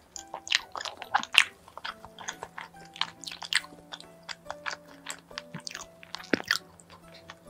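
Close-miked chewing and biting of a soft cream-filled bun, a dense run of short wet mouth clicks, the loudest about a second and a half in. Quiet background music plays underneath.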